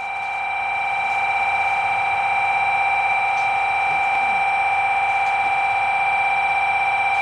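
Electric station departure bell ringing continuously with a fast, even rattling strike, signalling that the train is about to leave.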